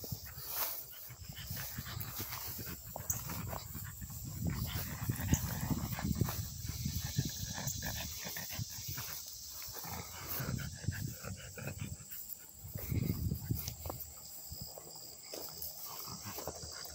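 A small dog's breathing and snuffling sounds as it walks on a leash, coming in irregular low bursts.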